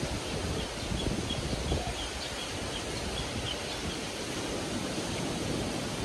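Steady wash of sea waves and wind, with a run of faint high chirps between about one and three and a half seconds in.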